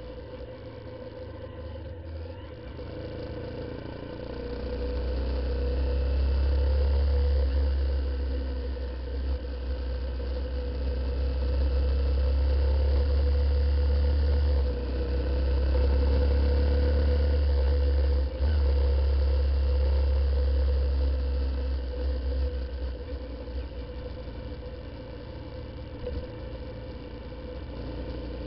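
Honda CBF125 single-cylinder motorcycle engine running on the move, with a heavy low rumble of wind on the microphone. The rumble swells about five seconds in and eases off after about twenty-two seconds.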